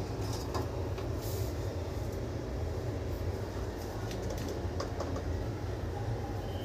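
A steady low rumble in the kitchen, with a few light clicks of a small spoon against the plastic spice cups about half a second in, around a second in and near five seconds.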